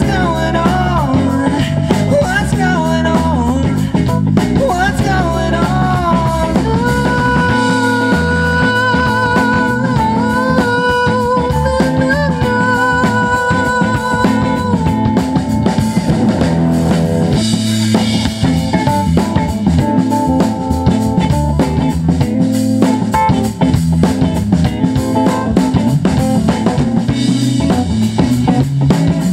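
Live rock band playing: a drum kit, electric and bass guitar, with a lead line holding long notes partway through.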